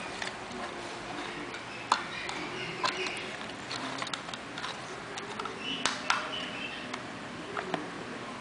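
Handling noise from a string of plastic LED fairy lights: a few irregular light clicks and taps over a steady hiss.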